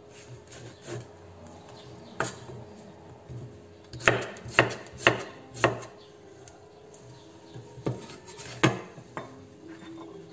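Kitchen knife slicing Chinese squash thinly on a wooden cutting board, the blade knocking the board with each cut: a few scattered strikes, a quick run of four about half a second apart around the middle, then two more near the end.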